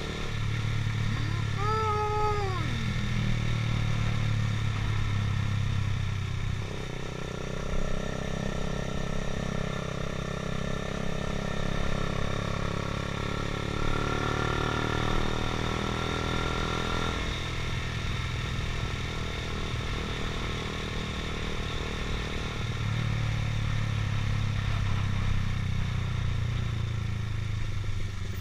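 Motorcycle engine running steadily while riding, under a broad rush of wind and road noise. The engine note drops away about a third of the way in and returns near the end. Early on a short pitched tone sounds, its pitch falling as it ends.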